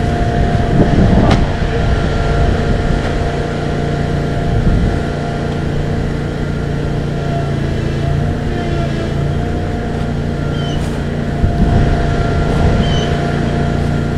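A motor running steadily with a constant hum, with a short sharp knock about a second in.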